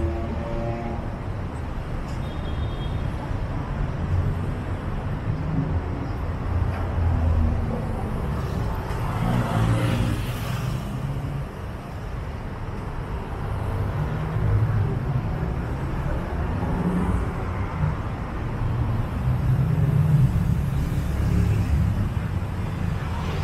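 Road traffic rumbling steadily, swelling and easing as vehicles go by, with one vehicle passing louder about ten seconds in.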